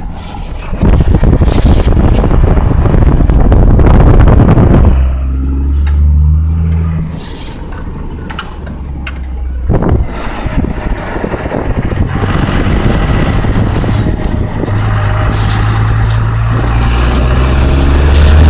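A motor vehicle running, with a loud low rumble and a low hum that comes and goes, stronger about five seconds in and again near the end. The owner calls it a bad noise.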